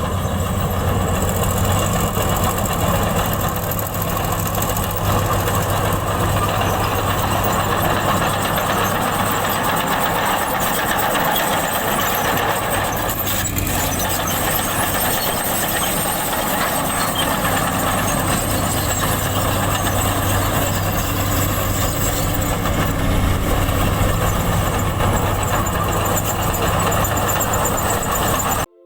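Komatsu bulldozer's diesel engine running steadily with an even, unchanging drone; it cuts off abruptly just before the end.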